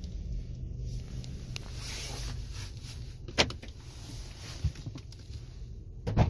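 Steady low hum of a car idling, heard from inside the cabin, with one sharp click about three and a half seconds in and a few clicks near the end as the car door's latch is worked.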